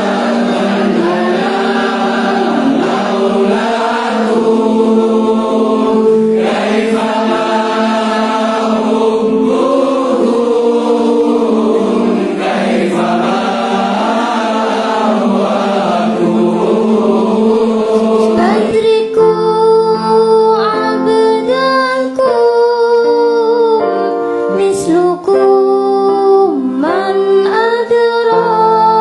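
A group of voices singing an Islamic devotional song (sholawat) together over steady held low notes. About two-thirds of the way in, the group sound thins and fewer voices carry on with an ornamented, winding melody.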